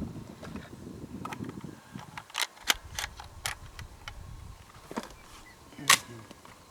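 Rustling and a few sharp clicks, then a single loud shotgun shot about six seconds in.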